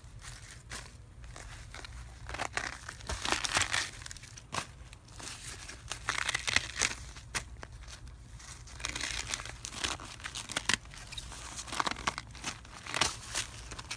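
Dry leaves and paper being handled in a bucket, crinkling and crackling in irregular bursts.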